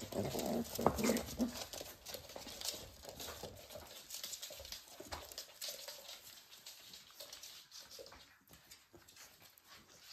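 Pembroke Welsh Corgi puppies play-growling as they wrestle for the first second or so, then scuffling and short clicks of their claws on a laminate floor as they move about.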